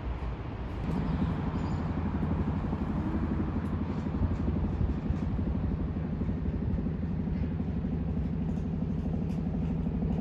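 Motor vehicle engine running steadily with a low rumble, its note coming up louder about a second in.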